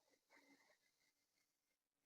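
Near silence: a faint room tone, with no audible sound.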